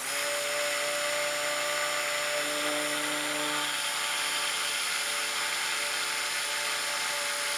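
Stick blender running steadily, submerged in a bucket of soap-making oils and blending powdered colloidal oatmeal in so that no lumps remain. The motor's tone shifts slightly for about a second midway through.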